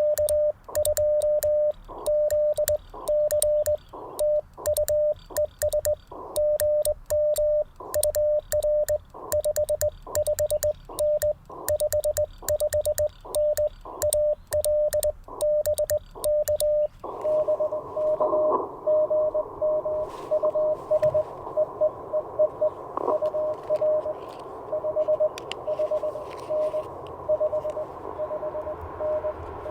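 Morse code hand-sent on an N3ZN ZN-SS sideswiper (cootie) key: the Icom IC-705's sidetone beeps on and off, with a sharp click from the key's contacts at each dit and dah. About seventeen seconds in, the radio drops back to receive: band hiss and static come up, carrying a fainter Morse signal at the same pitch.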